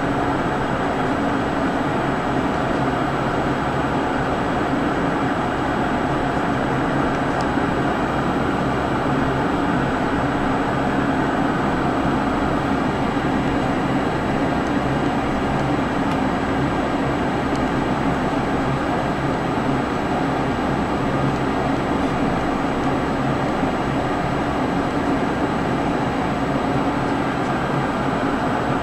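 Steady drone of a Pilatus PC-12's single Pratt & Whitney PT6A turboprop and propeller at low ground power, heard inside the cabin, with a thin, faint high whine over it.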